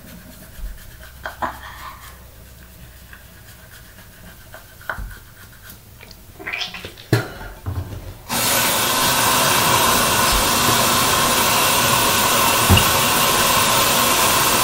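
A few faint rubs and clicks of toothbrushing. About eight seconds in, a bathroom tap is turned on and water runs steadily into the sink basin with an even, loud hiss.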